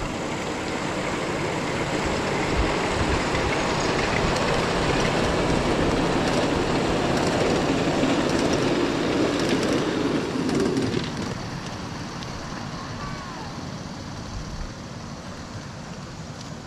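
A 7½-inch gauge miniature passenger train with riders aboard rolling past on its track, its wheels making a steady rumble that builds, holds, then falls away sharply about eleven seconds in.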